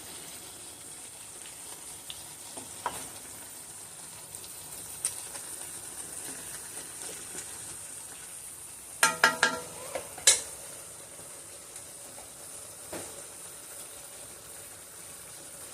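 Cubed beef with mushrooms and onions sizzling steadily in a pan on high heat. A short clatter of a utensil against the pan comes about nine to ten seconds in.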